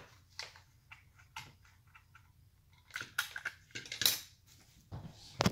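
Plastic parts of a digital shipping scale and its separate display unit being handled on a table: scattered light clicks and rubbing, then a few louder knocks from about three seconds in, the loudest near the end.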